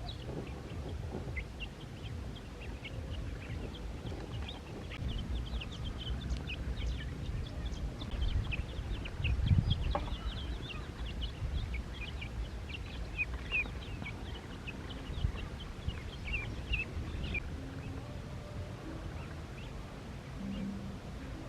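Ducklings peeping: many short, high peeps come thick and fast, then die away near the end, over a low rumble. A single thump about halfway through is the loudest sound.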